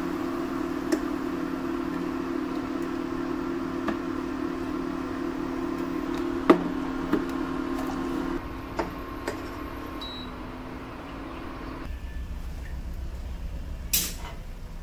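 Induction cooktop humming steadily under a steel saucepan, with a few light clinks of a spatula against the pan. The hum's low part stops about eight seconds in and the rest about twelve seconds in, and a sharp knock comes near the end.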